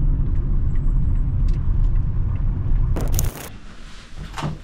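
Steady low road rumble inside a moving car, which stops abruptly a little past three seconds in, just after a short loud rustling burst.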